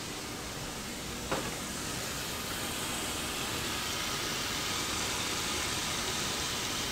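Steady hissing noise, with a single light knock about a second in.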